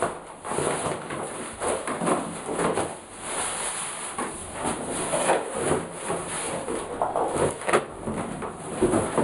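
Cardboard box being pawed, scraped, crumpled and knocked about on a tiled floor: irregular rustling and scraping with scattered thumps.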